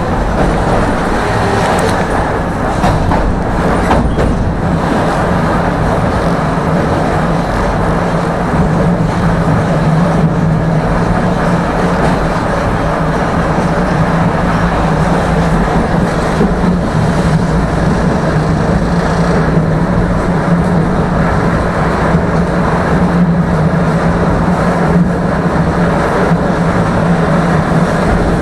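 A tram running along its rails, heard from on board: a steady rumble with a steady low hum, and a few sharp clicks in the first few seconds.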